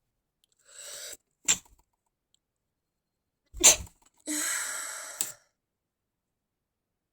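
A person's stifled sneezes: two short, sharp, held-in bursts, the first about one and a half seconds in and a louder one near the middle, with breathy intakes and exhales around them.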